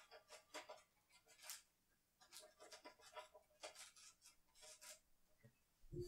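Near silence, with faint irregular clicks and rustles scattered throughout.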